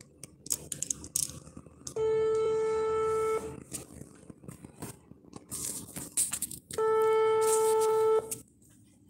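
Telephone ringback tone of an outgoing call ringing unanswered: a steady beep about a second and a half long, heard twice about five seconds apart. Faint handling clicks and rustles come between the beeps.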